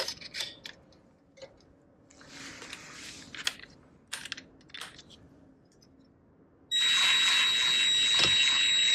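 Light metal clicks and taps of brake pads and a rattle clip being handled in a brake caliper. Near the end, a Ryobi cordless impact wrench starts up and runs steadily with a high whine as it drives in a caliper bolt.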